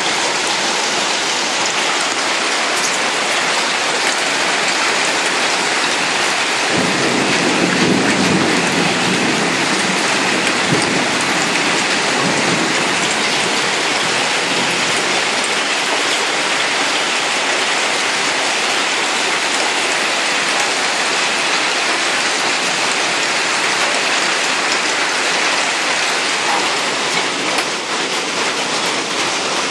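A heavy hailstorm: hail and rain falling hard on streets, parked cars and a balcony, a loud, dense, steady rush. It swells louder and deeper for several seconds about seven seconds in.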